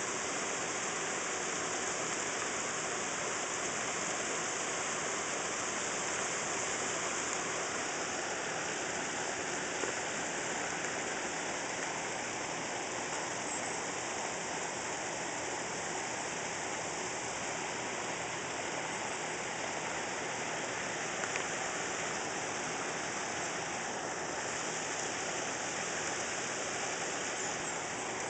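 Steady rush of running water at a pond, unbroken and even throughout.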